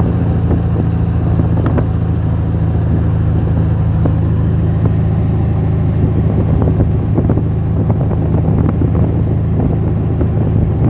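A vehicle engine runs steadily at an even speed as it drives, with frequent small clicks and knocks over it.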